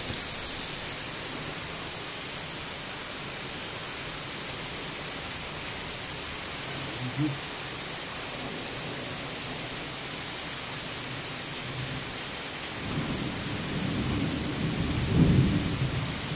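Heavy rain falling steadily on a paved street. A low rumble of thunder swells in the last few seconds and peaks just before the end.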